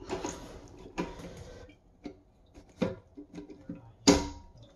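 Plastic parts of a toilet tank's fill valve being handled and fitted back together: rustling, a few small clicks, and a sharper knock about four seconds in.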